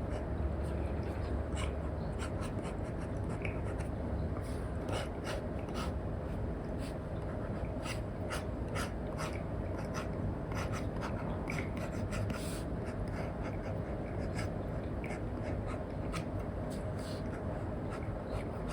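Apple Pencil tip scratching and tapping across an iPad screen fitted with a paper-like matte film: irregular short strokes and taps of sketching, over a steady background hiss.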